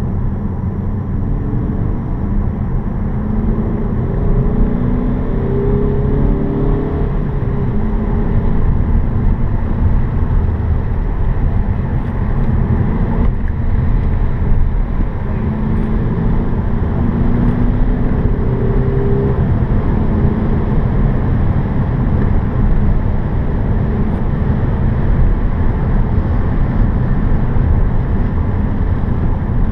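Seat Leon FR 184's 2.0 TDI diesel engine under hard driving, heard from inside the cabin, its pitch rising as it pulls up through the revs a couple of times over a steady road and tyre rumble.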